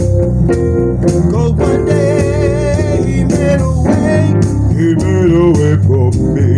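Song with guitar over a steady drum beat. From about a second and a half in, a sung melody comes in, holding long wavering notes.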